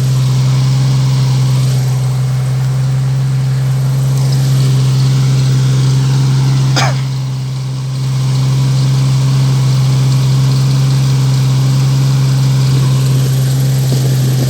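Jeep Cherokee engine in a tubular-frame off-road jeep running at a steady, even speed, with a brief drop in level and a short sharp sound about seven seconds in.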